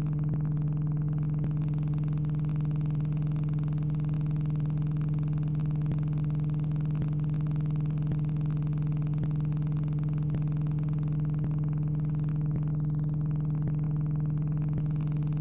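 Steady electrical hum on the recording, low and unchanging throughout, with no crash or engine sound heard.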